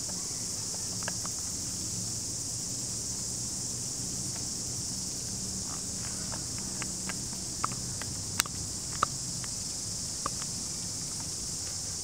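Steady high-pitched chorus of insects, with scattered sharp clicks and taps, most of them in the second half.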